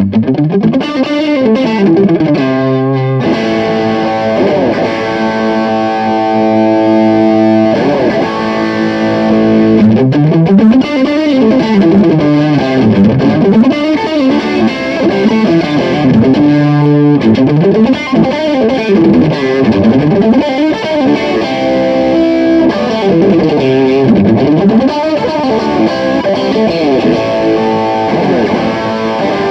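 Fender Stratocaster played through a Fire Custom Shop Ultimate Distortion pedal into a Peavey Bandit 112 amp, giving a heavily distorted electric guitar. The playing is loud and steady, with rising and falling runs between ringing held chords.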